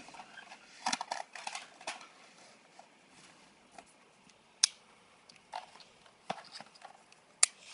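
Scattered light clicks and brief rustles of small plastic objects being handled. There is a sharp single click midway and another near the end.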